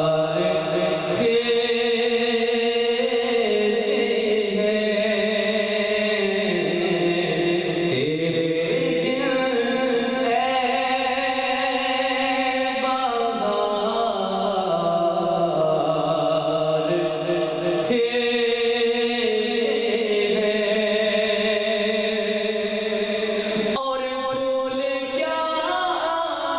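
A man singing a naat, an Urdu devotional poem in praise of the Prophet, solo into a microphone. He holds long, drawn-out notes that slide up and down in pitch, with short breaks between phrases.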